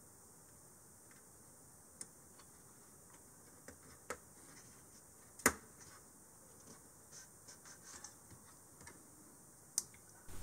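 Faint scattered clicks and taps as a DIP SRAM cache chip is handled and pressed into its socket on a 386 mainboard, with one sharper click about five and a half seconds in.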